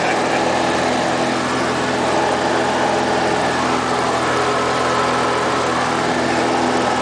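Light aircraft's piston engine and propeller droning steadily in flight, heard from inside the cabin, with a constant rush of airflow under the engine note.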